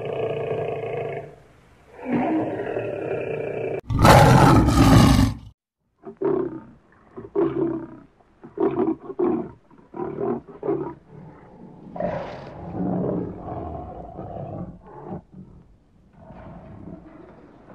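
Lion roaring: long drawn-out roars, the loudest about four seconds in, then a string of short grunting roars about two a second, followed by quieter calls.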